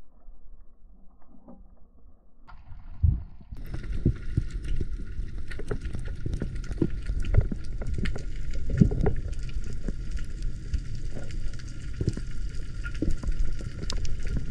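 Water noise picked up by a diver's camera, muffled at first. About three and a half seconds in it opens out into a louder, fuller wash with frequent knocks and bumps against the camera.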